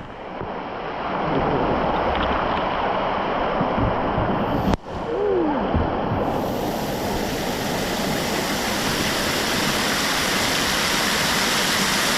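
Steady rush of falling and splashing water from a water park's pool features, cutting out briefly about five seconds in.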